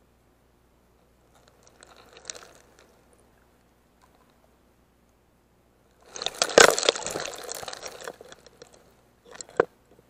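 Sea surge washing through shallow rocks, heard underwater. A faint rush of water is followed about six seconds in by a much louder one, full of crackling bubbles and grit. A few sharp clicks come near the end.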